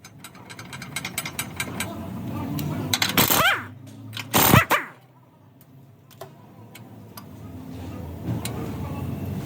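Sway bar bushing noise: a run of quick clicks and knocks, then two loud creaking squeals that slide down in pitch, about three and four and a half seconds in. This is the noise that a bushing change is meant to cure, typical of worn or dry sway bar bushings.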